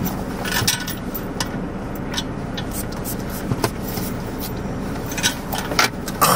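Scattered small clicks and rustles from handling a lip gloss tube and its applicator, over the steady low hum inside a car.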